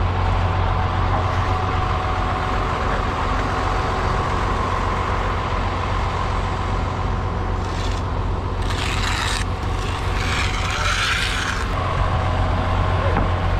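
Large vehicle engine running steadily at constant speed, with two short bursts of hissing or scraping noise about eight and ten seconds in.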